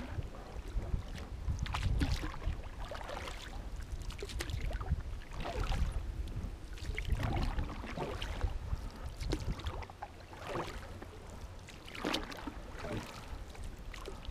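Small inflatable boat being moved by hand through marsh water: a swish and splash with each stroke, coming roughly every one to two seconds. A low rumble of wind on the microphone lies under it.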